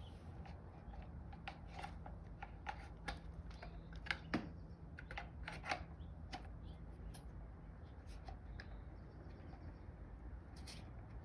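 Plastic spray wand and trigger gun of an electric pressure washer being handled and twisted together by hand: irregular sharp plastic clicks and rubbing, over a faint steady low hum.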